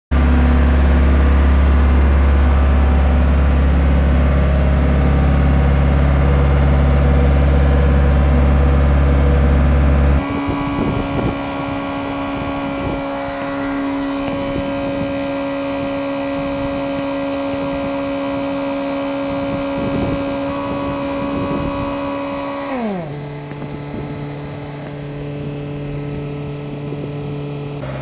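Engine of a boatyard travel hoist running steadily. The first ten seconds hold a loud low hum; then the sound changes abruptly to a steadier higher note, which drops to a lower idle about 23 seconds in.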